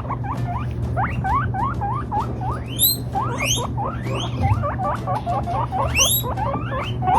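Guinea pigs wheeking: a rapid string of short, rising squeaks, about three or four a second, with a long whistle sweeping steeply upward twice.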